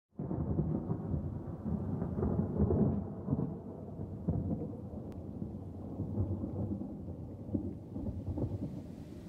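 Rolling thunder of a storm, starting suddenly, loudest in the first three seconds and then easing off into a lower rumble.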